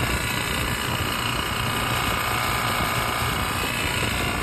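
Three-phase semi-hermetic refrigeration compressor running with no oil, making a steady mechanical noise: a hum with higher whining tones and a fine rattle. The noise is the sign of oil starvation; the compressor has gradually lost its oil while refrigerant kept being added, and it sounds as if it were running backwards.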